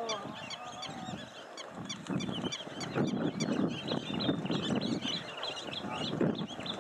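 Wild birds calling in many short, quick high chirps throughout, over an uneven low rumble that swells in pulses from about two seconds in.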